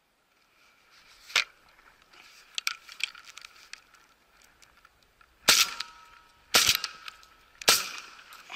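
Three shotgun shots about a second apart, from a camouflaged shotgun fired at a passing goose, likely with magnum loads. A single sharp click comes about a second and a half in, well before the shots.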